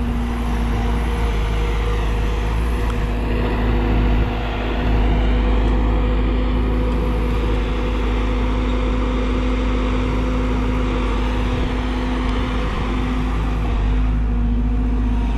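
Hyundai R140LC-9 crawler excavator's diesel engine running steadily under load while it digs and swings sand, a continuous drone with no sharp knocks.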